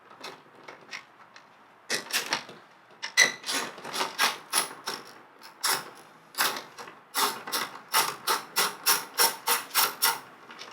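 A ratchet wrench clicking as 10 mm bolts around a car door panel are backed out. The clicks come in short uneven bursts at first, then settle into a steady run of about three or four a second in the last few seconds.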